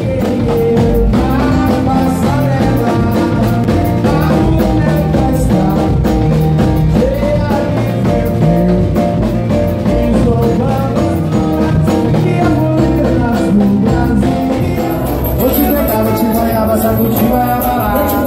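Live band playing upbeat dance music with a singer, backed by electronic keyboard, electric bass and a drum kit keeping a steady beat.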